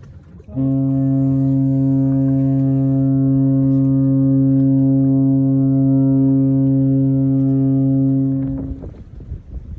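A ship's horn sounding one long, steady, deep blast of about eight seconds, starting about half a second in and cutting off near the end.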